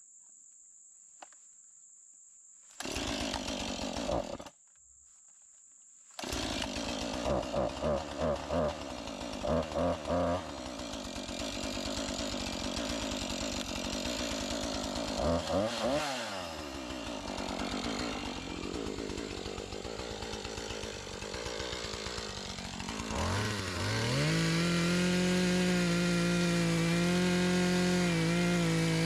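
Two-stroke gas chainsaw: a short burst of engine sound, then from about six seconds in it runs continuously, revved in several quick blips before being held at a steady high speed for the last few seconds.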